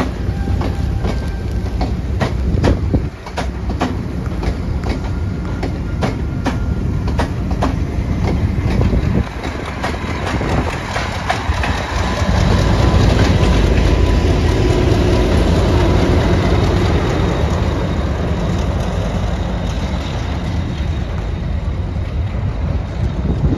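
Charter train hauled by Class 37 and Class 50 diesel locomotives pulling out. Its wheels click over rail joints about twice a second for the first several seconds over a low engine rumble. About halfway through the rumble grows louder and steadier, then slowly fades.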